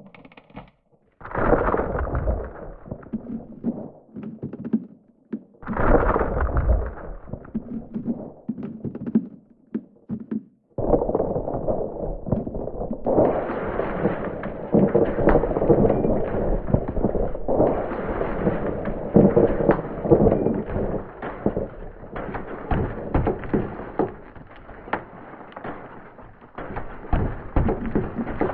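Glacial ice crashing and cracking. It starts with heavy, sudden crashes carrying a deep rumble: one about a second in, another around six seconds and another near eleven seconds. After that comes a dense, continuous crackle of sharp cracks and knocks.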